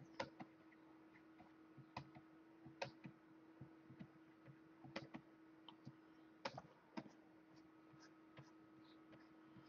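Quiet room with a steady low hum and faint, irregularly spaced clicks of computer keys and input, about eight sharper ones among them.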